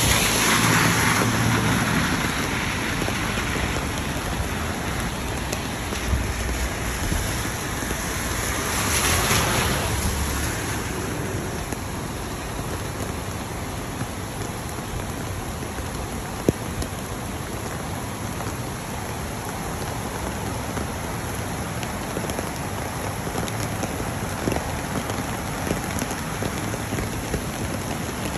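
Steady rain falling. It swells briefly near the start and again around nine seconds in, with a single sharp tap about sixteen seconds in.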